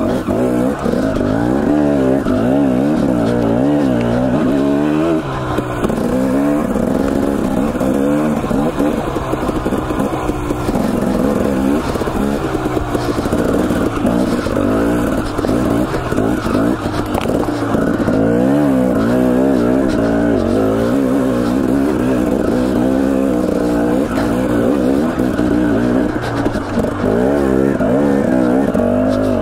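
Husqvarna TE250 two-stroke dirt bike engine under constant throttle changes, its pitch rising and falling every second or so as the bike climbs rough single track.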